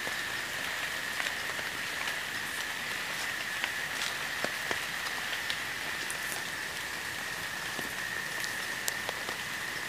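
Overnight phone recording outdoors: a steady hiss of rain with scattered sharp drip-like ticks, under one steady high-pitched tone.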